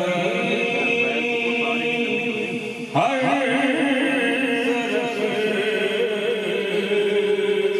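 Men's voices chanting a devotional recitation, held notes with a microphone-led voice over the standing congregation; a new line begins about three seconds in.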